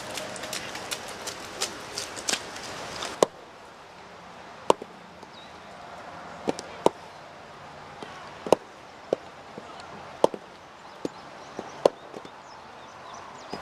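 A quick patter of clicks for about three seconds, then, after a sudden drop in level, heavy hammers striking wooden blocks: about a dozen sharp, separate whacks at an uneven pace, some in quick pairs.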